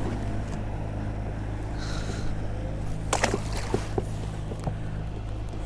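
Electric trolling motor on a kayak humming steadily. About three seconds in there is a short splash as the caught bass is dropped back into the water.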